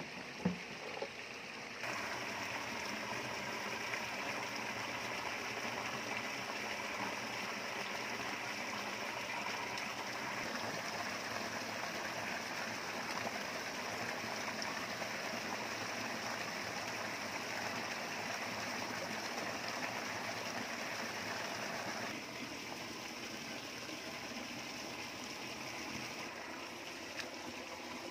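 Small petrol-engine water pump running, with rushing water. A sharp knock about half a second in, then the sound gets much louder about two seconds in, holds steady, and eases down a little around twenty-two seconds.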